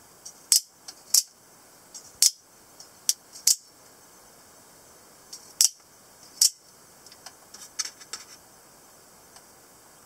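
Out-the-front automatic spring knife firing and retracting its blade, each action a sharp snap: about seven loud snaps in the first seven seconds, some in quick pairs, then a few lighter clicks near the end.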